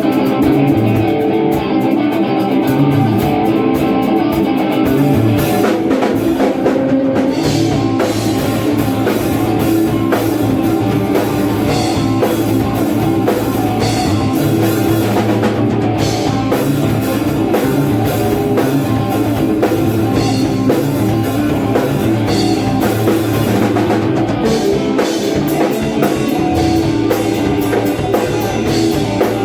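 Electric guitar played through effects pedals in a rock piece, with drums keeping time, starting abruptly and running on steadily.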